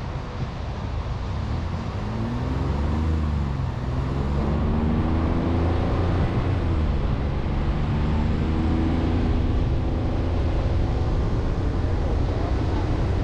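Chevrolet Colorado ZR2 Bison pickup driving through soft beach sand. The engine runs under load, its pitch rising and falling several times, and it grows louder over the first few seconds.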